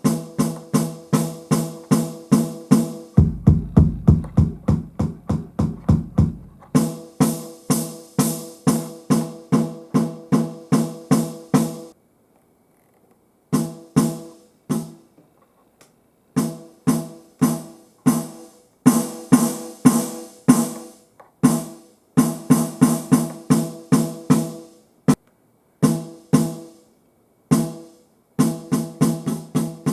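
Roland TD-17 electronic drum module sounds, drums struck in a quick steady rhythm of about four hits a second, each hit with a pitched ring. A low rumble runs under the hits from about three to seven seconds in, and the playing stops and restarts several times, with the longest pause about twelve seconds in.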